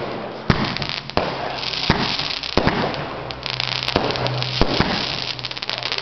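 Fireworks going off: a string of sharp bangs, one every half second to a second, with crackling between them and a quick run of crackles near the end.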